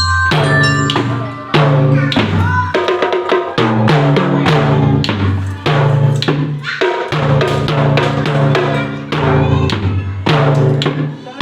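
Children's drum band playing a tune: bass and snare drums beating a steady marching rhythm under a melody line of sustained notes.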